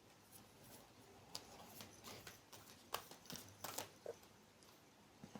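Near silence with a few faint, scattered clicks and light rustles.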